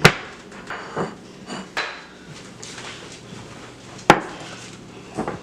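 Dishes and utensils knocking and clinking on a kitchen counter: a few separate sharp knocks, the loudest about four seconds in.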